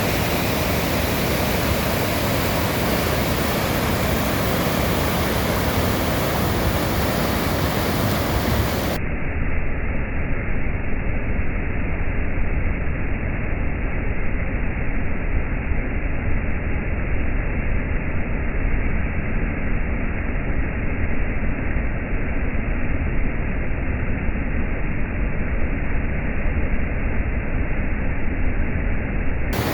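Steady rushing roar of a large waterfall, Nevada Fall, with heavy low rumble. About nine seconds in, the sound abruptly turns duller, losing its high hiss.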